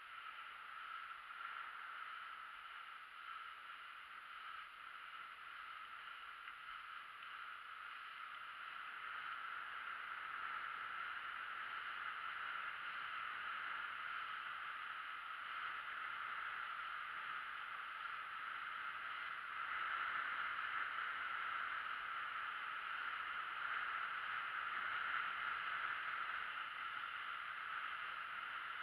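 Mountain bike rolling down a track: a steady rushing hiss of tyres and wind, growing louder from about a third of the way in.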